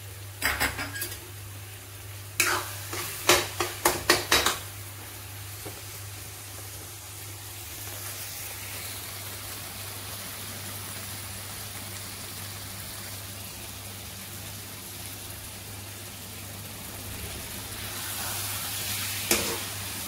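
Metal spatula scraping and knocking against a metal pan as thick onion-tomato pav bhaji masala is stirred. The strokes come in a cluster early on and again near the end, with the masala sizzling steadily in oil between them, at the stage where it is nearly cooked and the oil is separating at the sides.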